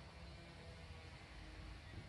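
Near silence: a faint steady low rumble and hiss of background noise.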